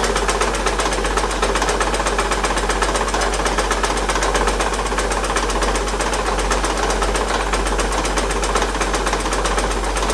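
2008 Acura TL's 3.5-litre V6 running with a steady, rapid knock, the sign of a broken crankshaft.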